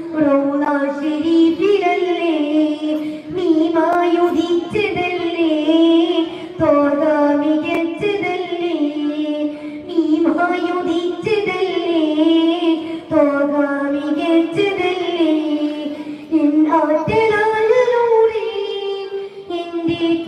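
A boy singing solo through a microphone: a Malayalam devotional song in praise of the Prophet Muhammad, sung as a melody of long held, ornamented notes in phrases with short breaths between them.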